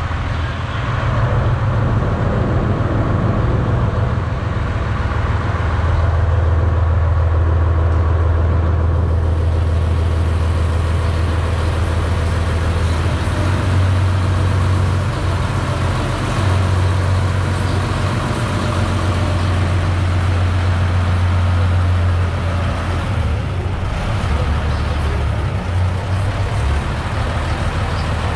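A heavy engine running steadily, a deep low drone that swells and eases a little now and then.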